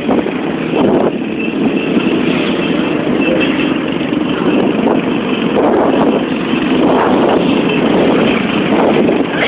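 Motorbike engines running with wind buffeting the microphone, heard from a moving motorbike riding among other motorbikes.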